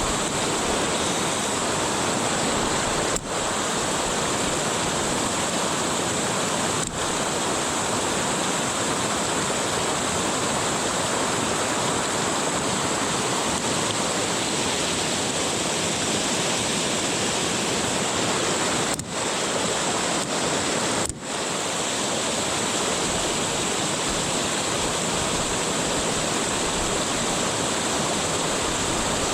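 Fast river water rushing steadily over rapids, an even hiss with four brief dropouts.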